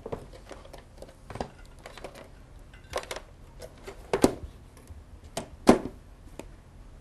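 Irregular clicks and knocks of EMT equipment (pocket mask and oxygen gear) being handled and checked, with several sharper knocks in the second half.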